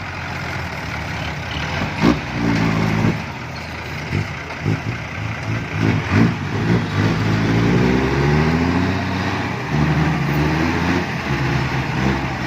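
Heavy diesel engine of earth-moving machinery running and revving up and down repeatedly under load, with a few knocks in the first few seconds.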